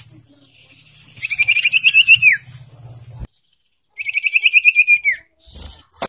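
Young common iora calling: two fast trills of repeated high chattering notes, each about a second long and ending in a downward slur. They are a second and a half apart.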